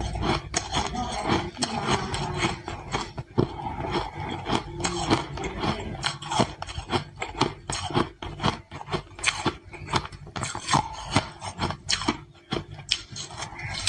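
Ice being bitten and chewed, a fast, irregular run of crunches.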